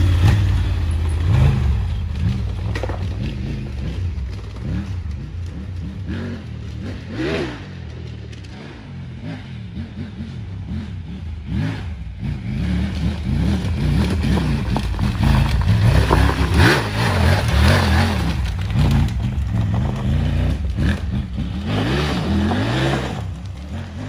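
Triumph Tiger 900's three-cylinder engine revving off-road, its note rising and falling with the throttle. It is loud up close at first, fades, then builds again as the bike approaches, loudest a little past the middle.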